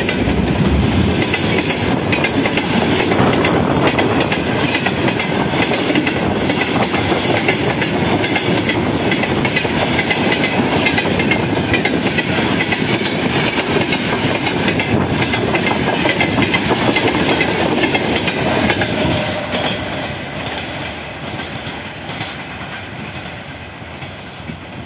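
Freight train wagons, pipe-loaded flatcars and gondola cars, rolling past close by: steel wheels clattering over the rail joints in a dense, loud rumble. From about 19 seconds in, the last wagon has passed and the sound fades as the train moves away.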